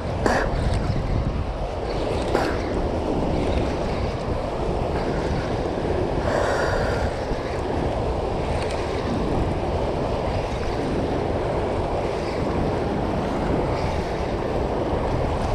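Steady rushing of churning tailwater below a hydroelectric dam with its generators running, with wind buffeting the microphone.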